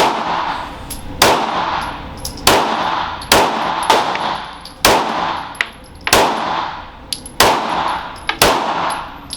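Handgun shots fired one after another, about one a second, ten or so in all, each followed by a long ringing echo off the walls of an indoor range.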